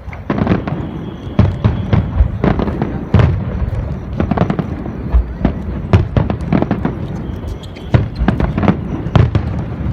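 Aerial fireworks display: a dense, irregular run of booms and sharp cracking bursts, several a second at times, over a continuous low rumble.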